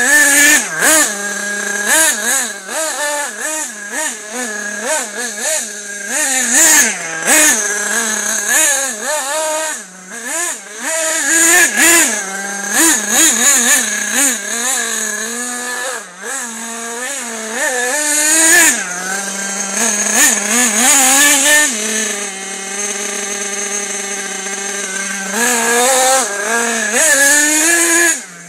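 Nitro RC buggy's small two-stroke glow-fuel engine revving up and down over and over as it is driven, with a few seconds held at a steady note about three-quarters through.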